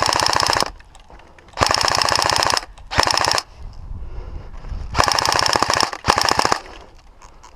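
Electric airsoft rifle, a G&G GI-G4 DMR, firing full-auto in five short bursts of rapid shots. Each burst lasts under a second, and the first is already under way at the start.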